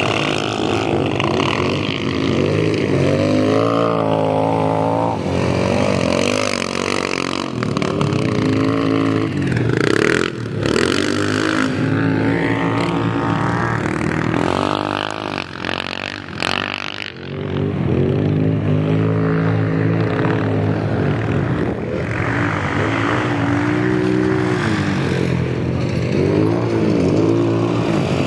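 Four-wheel-drive utility ATV engines revving up and down as the quads race around a dirt track, their pitch rising and falling with each throttle change. A few short crackles cut in around a third and just past halfway through.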